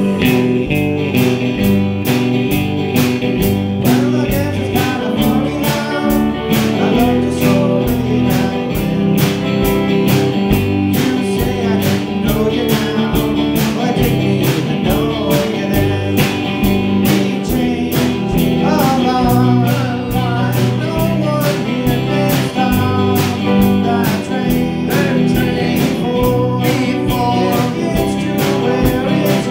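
Small band playing live: electric guitars, bass guitar and drums keeping a steady beat, with a man singing the lead vocal.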